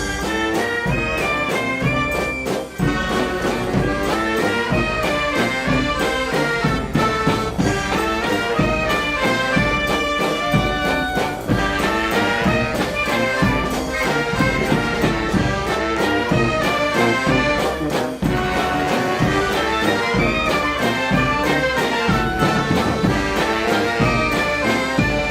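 Brass band music: a moving melody of horn notes over a steady beat.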